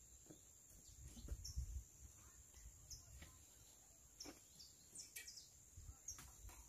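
Near silence with a few faint, short, high bird chirps over a steady high-pitched hum.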